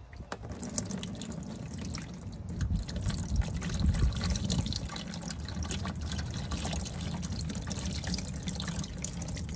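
Used engine oil pouring out of a 2019 Chevy Colorado ZR2's oil pan drain hole and splattering into a drain pan. The stream starts right after the drain plug comes out and keeps up as a steady, splashy gush.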